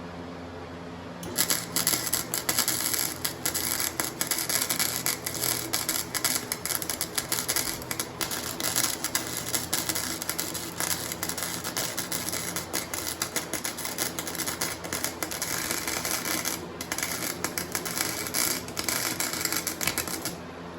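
Flux-core wire welder arc (Harbor Freight Flux 125) crackling and spitting in a dense, irregular crackle. It starts about a second in, breaks off briefly near the end, and stops just before the end. A steady hum runs underneath.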